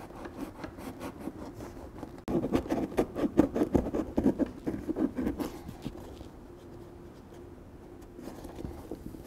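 Rounded edge of a coarse hand file scraping the inside of a PVC boat tube in rapid strokes, roughening the surface to prepare it for gluing a patch. The strokes are loudest from about two to five and a half seconds in, then go fainter.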